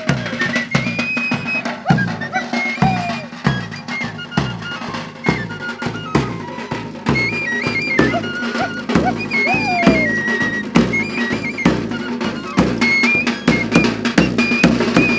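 Traditional folk music: a drum beating steadily about twice a second under a high flute melody moving in short held steps.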